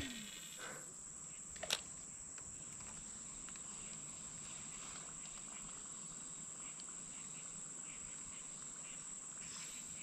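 Crickets chirring steadily in a continuous high-pitched drone, with one sharp click just under two seconds in.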